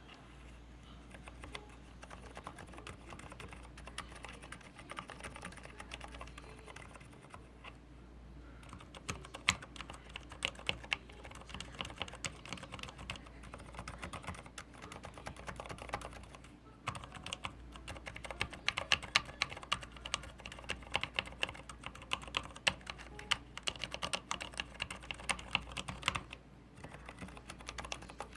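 Rapid typing on a Leopold FC900R PD mechanical keyboard with silent red (Cherry MX Silent Red) switches. The keystrokes are softer for the first several seconds and then grow louder and denser, with one brief pause. On the ASDF row the keycaps interfere and knock against each other, a collision noise the owner reports as a defect.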